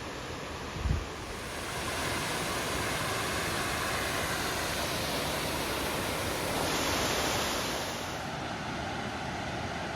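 Steady rush of a waterfall's falling water, swelling louder from about two seconds in and easing back near the end, with one low thump about a second in.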